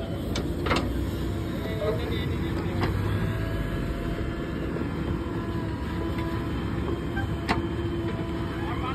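JCB 3DX backhoe loader's diesel engine running steadily while its rear bucket digs soil, with a steady hum and a few short sharp knocks, the sharpest about three-quarters of a second in and again near the end.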